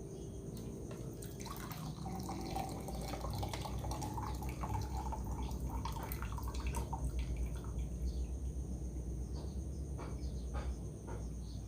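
Hot ginger water poured from a pan through a strainer, trickling and dripping, with small clicks from the utensils.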